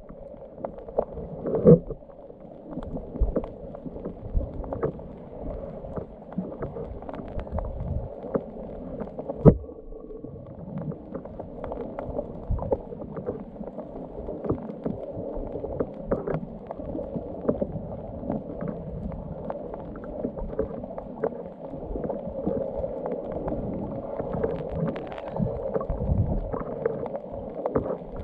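Muffled underwater sound picked up by a camera in its housing: a steady low rush of water, with many scattered clicks and crackles throughout.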